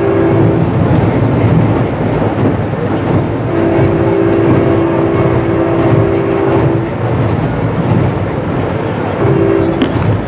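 An EMD F59PH locomotive's horn sounds a chord in the long-long-short-long grade crossing pattern: the end of one long blast, a long blast, a short one, and the last long blast starting near the end. It is heard from aboard the moving passenger train over the steady rumble and clatter of the cars on the rails.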